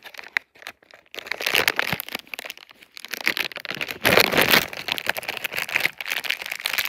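A Sour Jacks candy wrapper being opened by hand: irregular crinkling and rustling, with the loudest stretch of crackling about four seconds in.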